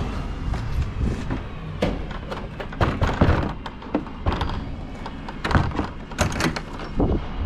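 Wooden bin-store doors being opened and handled by a gloved hand, giving a string of irregular knocks and thuds of wood over a steady low rumble.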